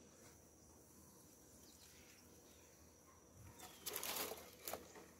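Quiet at first. About four seconds in comes a brief scraping rustle and then a short knock, as the wooden box of a beehive is handled and the upper box is lifted off.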